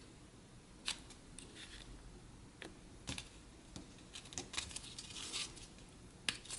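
Faint rustling and scraping of thin cardboard model-kit pieces being bent and pressed between the fingers, with a few sharp little clicks, the loudest about a second in and near the end.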